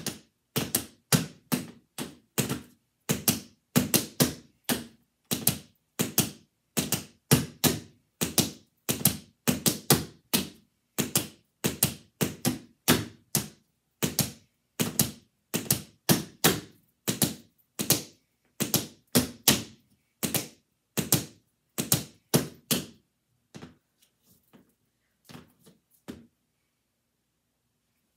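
Tap shoes striking a floor mat in quick rhythmic clusters of sharp taps, with no music. Near the end the steps thin to a few faint taps and then stop.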